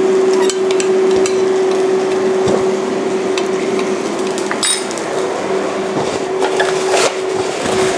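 A metal fork tapping and scraping inside a stainless steel ring mould as it presses chopped spinach down onto a ceramic plate, in scattered light clicks with a couple of sharper metal clinks, over a steady hum.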